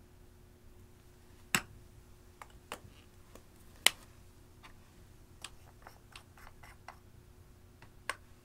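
Sparse sharp clicks and light taps from makeup containers and a metal spatula being handled over glass dishes, with two louder clicks about one and a half and four seconds in.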